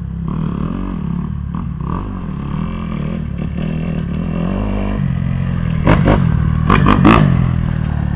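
Kawasaki KX250F four-stroke dirt bike engine being ridden, revving up and down so the pitch keeps rising and falling. There are a few short, louder bursts of noise about six and seven seconds in.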